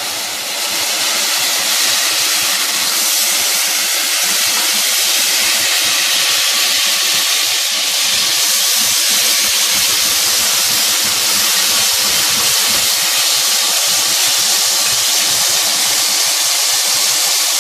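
Hot oil and fried onions sizzling with a steady, strong hiss as chicken stock hits them in the pot and flashes to steam.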